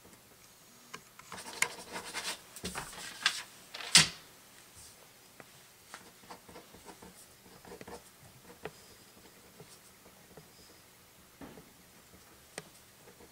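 Ballpoint pen writing on paper on a tabletop: a busy stretch of scratchy strokes and taps between about one and four seconds in, ending in a sharp knock, then only faint scattered pen strokes.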